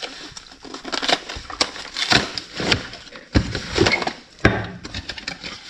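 Small objects handled on a workbench: irregular clicks, taps and knocks of cans, fittings and plastic packaging, with the sharpest knock about three and a half seconds in.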